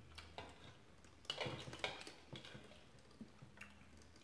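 Metal spoon clicking and scraping against a glass bowl of chicken noodle soup, with a denser flurry of scraping and eating noise a little over a second in.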